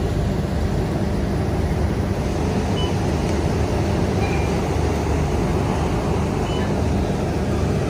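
Bus engine running steadily, heard from inside the passenger cabin, with the even hiss of heavy rain.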